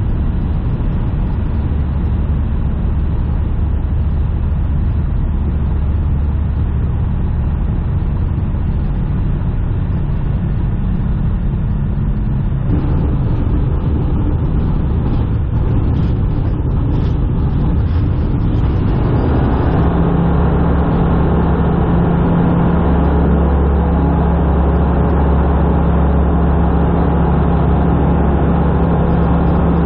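Tecnam P92 Eaglet's piston engine and propeller heard from inside the cockpit through a touch-and-go: a steady drone at low power on final approach, a change in the sound about thirteen seconds in as the wheels touch down and roll, then the engine opened up to full takeoff power about twenty seconds in, running louder and steady through the climb-out.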